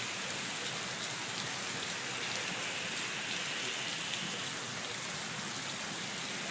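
Heavy rain pouring down steadily in an even hiss, with overflowing gutters spilling water.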